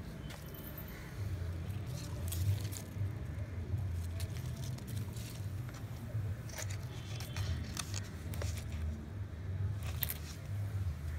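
Leaves of a potted vegetable plant being handled: soft rustles and scattered clicks over a low, steady rumble.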